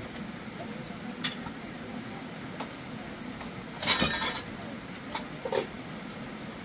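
Dishes and utensils clinking: a few light clinks, then a louder clatter about four seconds in.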